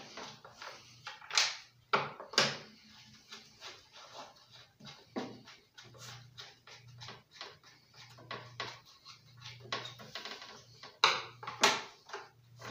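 Screwdriver driving in the bolts that hold the starter cover on a Subaru lawnmower engine: scattered clicks and knocks of the tool against the cover, the sharpest about a second and a half in, again at two and a half seconds, and twice near the end.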